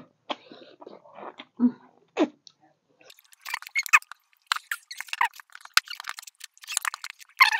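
Close-up eating sounds of people chewing buffalo meat and bone marrow: soft wet mouth noises at first, then from about three seconds in a quick run of sharp smacking clicks.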